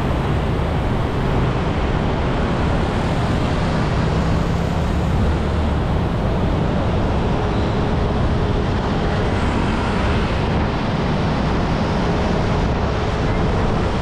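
Steady traffic and road noise, a continuous low rumble with no distinct events.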